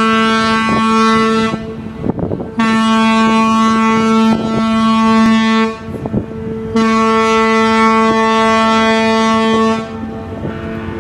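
A ship's horn sounding three long, steady blasts. The first ends about a second and a half in, and the next two last about three seconds each, with short gaps between them.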